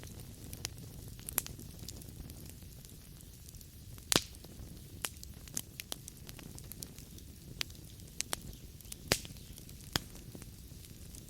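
Wood fire burning in a fireplace, crackling: a low steady rumble of flames with irregular sharp pops from the burning logs, the loudest about four seconds in and again about nine seconds in.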